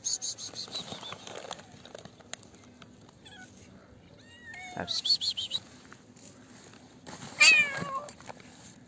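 Cats meowing, several calls in turn. The loudest, near the end, is a long meow falling in pitch.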